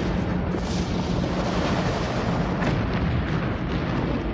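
Sound-effect explosion of a spaceship crashing into a mountain: one long, continuous rumble.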